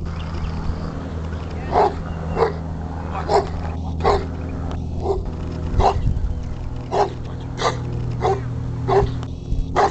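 Dog on a leash barking repeatedly at an approaching helper during protection training, about one bark every two-thirds of a second, starting about two seconds in. A steady low hum runs underneath.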